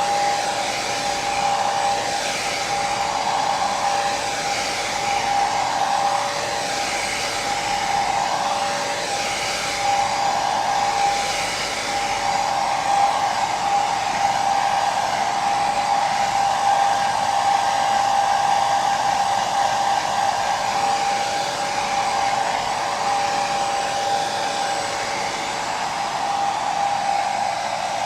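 Hair dryer running continuously: a steady airy rush of noise with a strong steady whine near the middle of the range and a fainter high tone above it.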